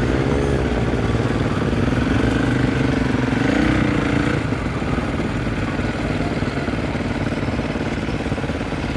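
Husqvarna SMR 510 supermoto's single-cylinder engine running at low speed in traffic, its pitch rising and falling a couple of times with the throttle in the first half, over steady rumble and wind on the helmet camera.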